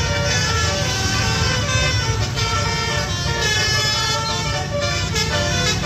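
Tour bus's multi-tone 'telolet' horn playing a tune of quickly changing notes, several tones at once, over a low engine rumble.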